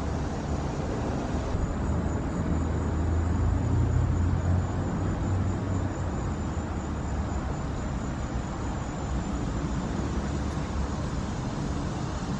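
Steady low outdoor background rumble, swelling a little a few seconds in, with no distinct sounds from the cats.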